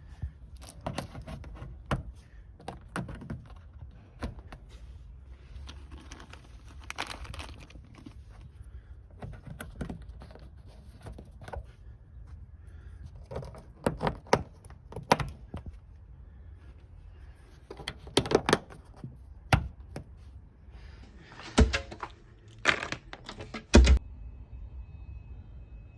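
Trim rivets being fitted to a car's wheel arch liner: an irregular string of clicks and knocks with some plastic rustling, the loudest knocks coming in the last third.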